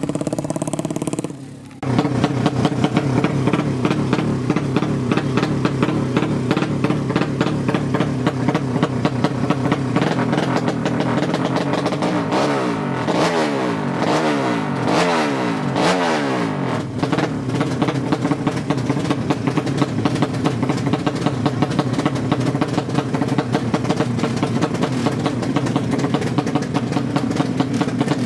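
Loud 200cc drag-racing motorcycle engine with a horizontal cylinder, running with a rapid pulsing exhaust. It dips briefly near the start, then keeps running, and about halfway through it is revved up and down several times.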